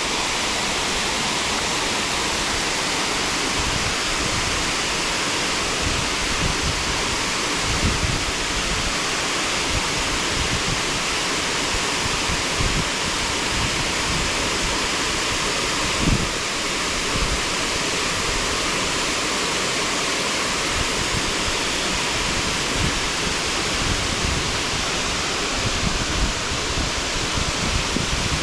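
Steady rush of water from a mountain stream, loud and unbroken, with occasional low thumps on the microphone.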